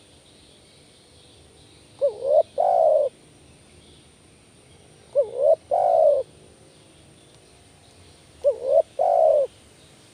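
Spotted dove cooing three times, about three seconds apart. Each phrase is a short rising double note followed by a longer drawn-out coo.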